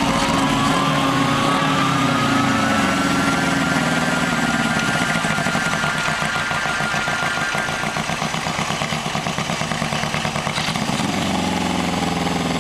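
Honda CB750 SOHC inline-four engine on a chopper running at low revs as the bike rolls slowly, dropping to a pulsing idle past the middle and picking up again near the end. A thinner whine rises in pitch over the first few seconds and then holds steady above the engine sound.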